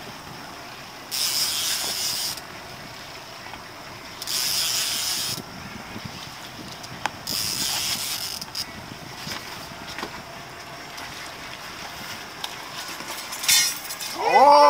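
Fishing reel being cranked in repeated bursts about a second long, roughly every three seconds, as a fish is wound in on rod and reel. A rising shout begins right at the end.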